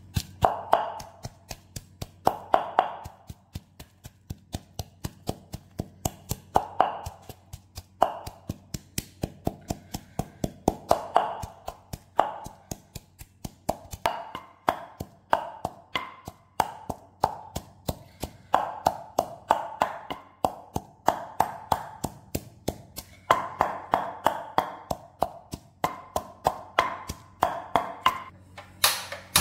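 Wooden pestle pounding garlic cloves and turmeric in a wooden mortar: a steady run of woody knocks, about three a second, as the garlic is crushed to a coarse paste.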